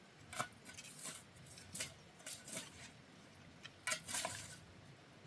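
Scattered light clicks and knocks of objects being handled, irregularly spaced, with the loudest cluster about four seconds in.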